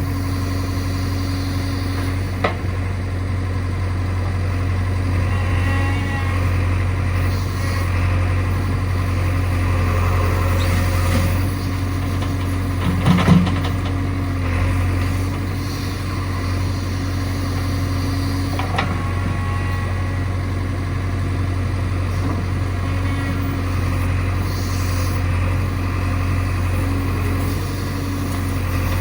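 Diesel engine of a backhoe loader or tractor running steadily at a low, even speed, with a few short sharp knocks about two and a half, thirteen and nineteen seconds in.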